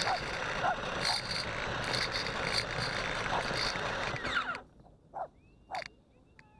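Axial SCX10 RC crawler's motor and drivetrain running as it drives over grass, heard close up from the truck itself, cutting off suddenly about four and a half seconds in, after which only a few faint short sounds remain.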